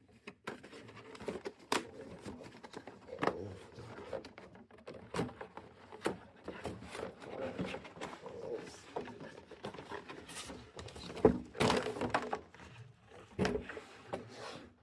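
Hands handling an RC car in its cardboard box and plastic packaging: scattered rustles, scrapes and light knocks, the loudest cluster about three-quarters of the way through.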